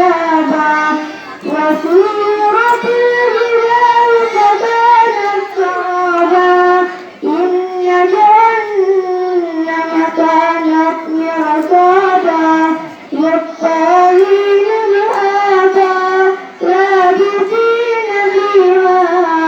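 A girl reciting the Quran in the melodic tilawah style, holding long, ornamented notes in a high voice. She pauses briefly for breath several times.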